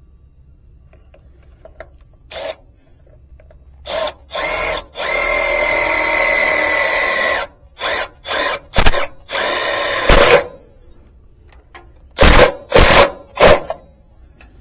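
Power drill running in short bursts and one longer steady run with a high whine, then three short loud bursts near the end, as the hard start kit is fastened in place.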